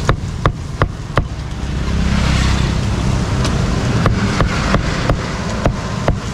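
Meat cleaver chopping grilled pork on a thick round wooden block: sharp knocks about three a second, with a gap in the middle. Under it, a low traffic rumble swells and fades midway.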